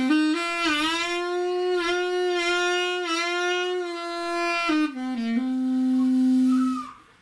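Saxmonica wind instrument playing a short blues phrase: a few quick notes stepping up into a long held note that bends slightly in pitch, then a few quick notes stepping down to a long low note that stops shortly before the end. The phrase demonstrates the 'devil's note', a flattened blue note made by rolling a finger back to half-open the second hole.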